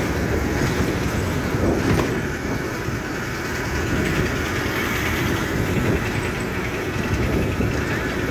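Steady rumble of engine and road noise from on board a moving road vehicle.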